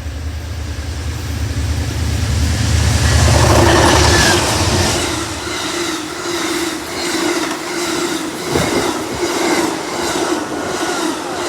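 Two Amtrak GE P42DC diesel locomotives pass at speed with a heavy diesel rumble that peaks and fades about five seconds in. The passenger cars follow, rushing past with a rhythmic clickety-clack of wheels over the rail joints and a steady hum.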